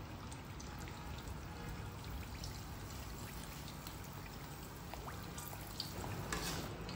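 Rice-flour papdi deep-frying in hot oil: a steady sizzle with scattered crackles and pops, a few louder pops about six seconds in.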